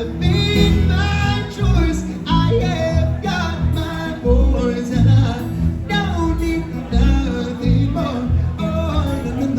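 Live reggae band playing, with a lead voice singing a melody over heavy bass.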